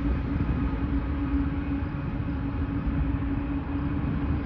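Diesel-electric locomotives of a loaded coal train passing: the rear distributed-power units, a GE ES44AC among them, running with a steady engine drone over a low rumble of wheels on the rails.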